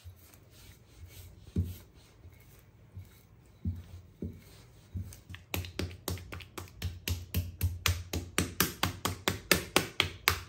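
Hand patting and slapping bun parota dough flat on a wooden table: a few soft thumps at first, then from about halfway in a quick, even run of sharp slaps, about three a second, growing louder. Background music plays underneath.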